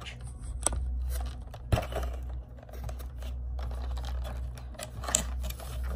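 Cardboard box and clear plastic insert tray being handled: a few sharp clicks and scrapes, the loudest about two seconds in, over a steady low hum.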